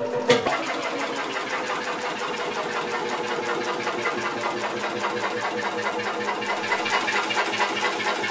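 1918 Jelbart tractor's single-cylinder two-stroke crude-oil engine running, a rapid, steady mechanical clatter of evenly spaced beats.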